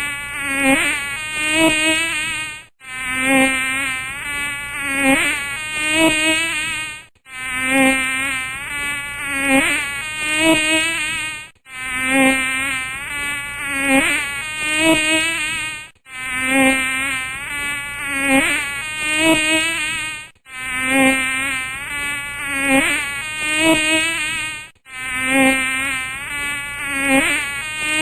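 A housefly buzzing, its pitch wavering up and down as it flies about. The same few-second recording repeats over and over, with a brief drop-out about every four and a half seconds.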